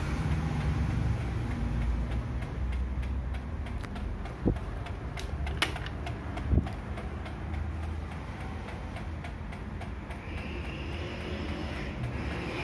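Maspion F-160S four-blade electric stand fan running with a steady motor hum and light ticking, which the owner ties to its oscillation no longer working. Its piano-key speed switches click sharply three times around the middle.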